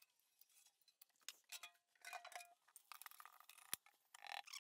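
Faint scattered clicks and clinks of a stainless steel sink and caulk gun being handled, with one sharp knock a little before the end.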